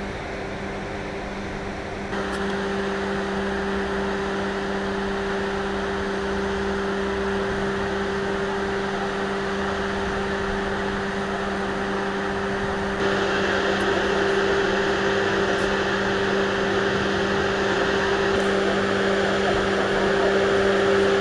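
A steady machine hum: a constant low drone with a higher tone above it over a hiss, which steps louder about 2 seconds in and again about 13 seconds in.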